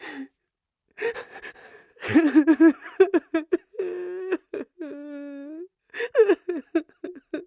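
A man crying hard: sharp gasping intakes of breath, a run of quick stuttering sobs about two seconds in, then two drawn-out wailing cries, then more gasping sobs.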